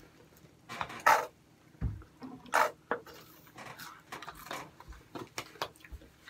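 Mealtime handling noises: a plastic dip cup and lid being handled and food eaten by hand, heard as a scatter of short rustles and clicks, two of them loud, about a second and about two and a half seconds in.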